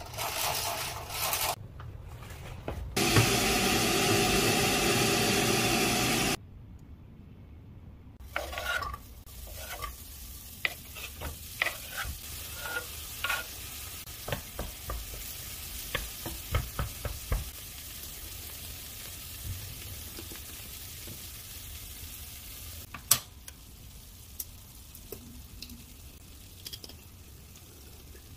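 Diced tomatoes and peppers sizzling in a ceramic frying pan on an electric hot plate, with a wooden spatula stirring and clicking against the pan. Before the frying starts, a loud steady rushing noise lasts about three seconds.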